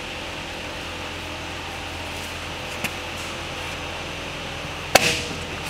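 A steady background hum, then one sharp metallic hammer strike with a short ring about five seconds in: a ratchet-strap 'redneck slide hammer' jerking at an axle cup rusted fast in a UTV's front differential.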